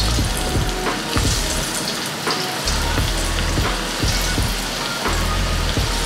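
Shiitake mushroom pieces coated in sweet potato flour sizzling steadily as they deep-fry in hot oil.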